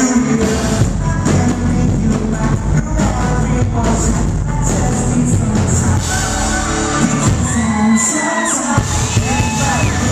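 Pop-rock band playing live with a sung lead vocal over acoustic and electric guitars and drums. The bass and drums drop out for a moment about three-quarters of the way through, leaving the voice and guitars, then come back in.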